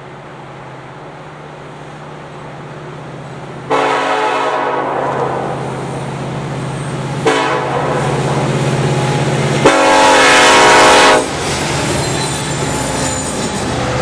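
Air horn of an approaching Canadian National diesel freight locomotive sounding several times, starting about four seconds in, with the loudest blast at about ten seconds as the locomotive draws level, over the steady low drone of its diesel engine. Freight cars roll past after the horn stops.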